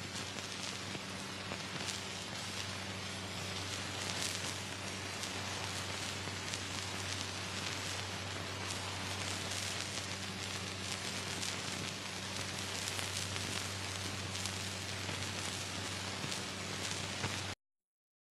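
Steady hiss and crackle with a low hum from an old archival film sound track, with no speech or other sound on it. It cuts to dead silence near the end.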